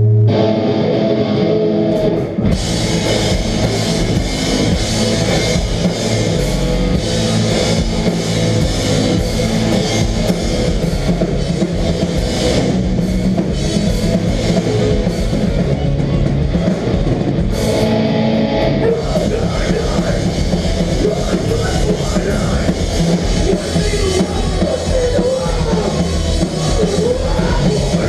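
Melodic hardcore band playing live and loud: distorted electric guitars, bass and a drum kit in an instrumental passage. The full band comes in at the start, with the cymbals joining about two seconds in.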